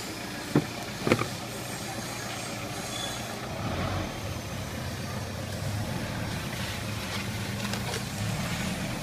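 A vehicle engine running steadily with a low hum, with two sharp knocks about half a second and a second in.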